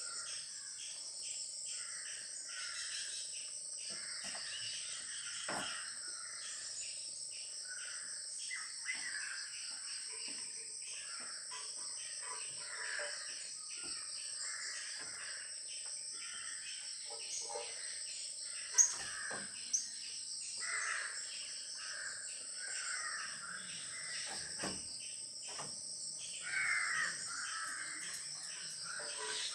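Outdoor ambience of insects chirring steadily and birds calling repeatedly, with two sharp clicks a little past halfway through.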